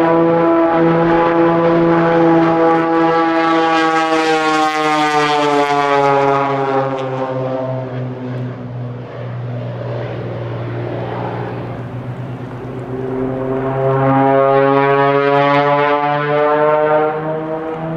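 Cessna A185F Skywagon's six-cylinder Continental IO-520 engine and propeller droning in flight as the aircraft dives and banks overhead. The pitch falls and the sound fades as it passes, then it grows loud again about two-thirds of the way through and drops in pitch once more near the end.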